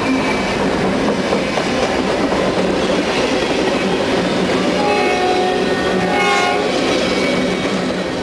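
Freight train rolling past close by, freight cars clattering over the rails in a steady rumble. A held pitched tone sounds for about two seconds, starting about five seconds in.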